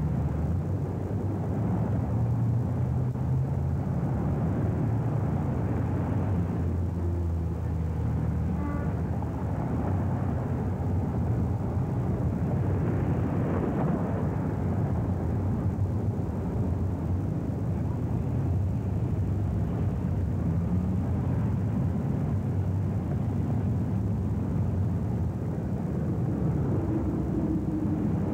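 Busy city-boulevard traffic: cars and a delivery van driving past close by. It is a steady rumble of engines and tyres that swells as vehicles go by, around six and fourteen seconds in.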